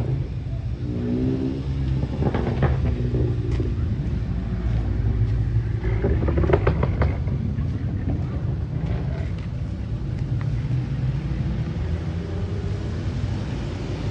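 Car engine running with a steady low rumble, with brief rises in revs.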